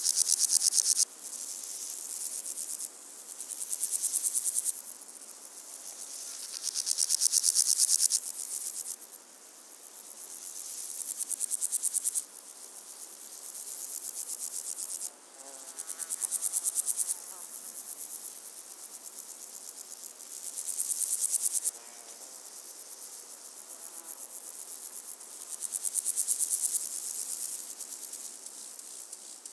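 Insects chirping in repeated high-pitched bouts of one to three seconds, each swelling in level and then cutting off abruptly, with short gaps between them.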